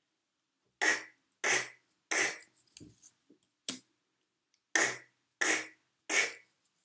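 A woman's voice saying the phonics letter sound /k/ in short, sharp, breathy bursts: three in a row, then, after a pause, three more.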